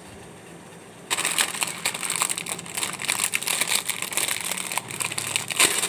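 Plastic wrapper of a Shoop instant-noodle packet crinkling and crackling as it is torn open by hand, starting about a second in, with the loudest crackle near the end.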